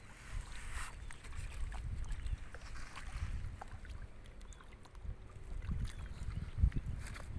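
Wind buffeting the microphone outdoors, an uneven low rumble that rises and falls in gusts, with a few faint small clicks.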